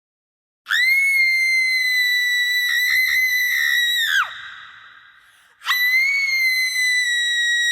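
A woman screaming with echo: a long, high-pitched scream held for about three and a half seconds that drops in pitch as it breaks off, its echo fading away. A second long scream begins about a second later.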